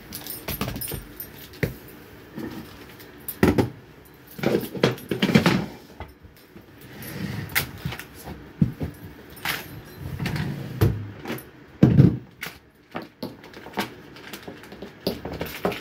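Irregular clicks, knocks and rubbing as things on a desk are wiped with a cloth, picked up and set down, an electric kettle and its cord among them.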